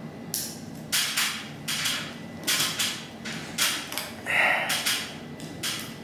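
Handling noises at a ceiling electrical box: about eight short scrapes and clicks as wires are worked and fastened into lever-type wire connectors.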